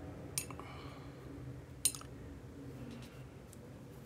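Two light clicks about a second and a half apart as a paintbrush is handled while swatching watercolour paints, over a faint steady hum of room tone.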